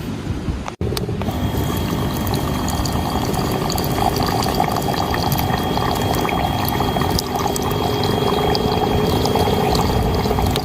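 Liquid pouring steadily into a container, starting just after a sudden cut about a second in.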